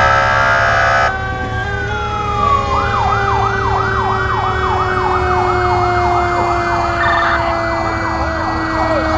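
Fire vehicle sirens and an air horn: a horn blast for about the first second over a siren wail that rises and then falls, switching a few seconds in to a fast yelp of about three cycles a second. A lower siren tone slides slowly down in pitch underneath, over a steady low engine rumble.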